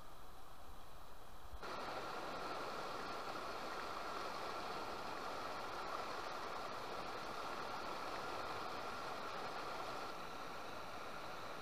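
River rapids rushing over boulders: a steady rush of white water that comes in suddenly about a second and a half in, after a quieter opening.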